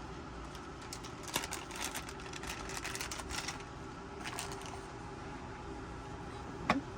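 Packaging being handled: bursts of crackly rustling and small clicks as the Cardo 2X's speakers are taken out, with one sharp click near the end. A steady low hum runs underneath.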